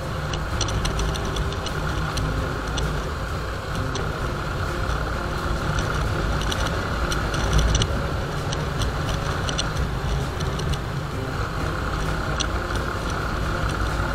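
Bajaj Discover motorcycle's single-cylinder four-stroke engine running steadily at cruising speed, heard from the riding position with wind rushing over the microphone. Scattered light clicks come through all along, with one brief louder bump a little past halfway.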